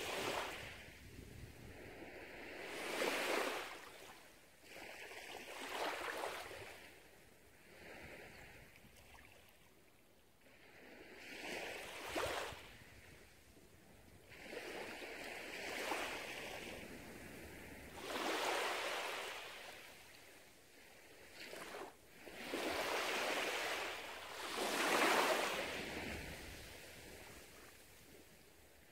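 Small waves breaking gently and washing up onto a sandy beach, each surge of surf rising and fading every few seconds.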